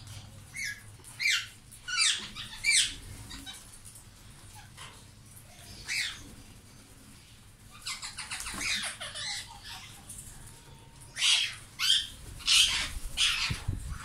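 Indian ringneck parakeets giving short, harsh squawks: four calls about a second apart at the start, a single call midway, a run of chatter soon after, and four loud calls in quick succession near the end.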